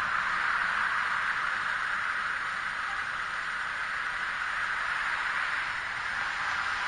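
Steady hiss of street traffic, with cars passing by. It is a little louder at the start and swells again about five to six seconds in.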